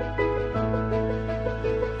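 Background music: a gentle melody of held notes over sustained bass notes.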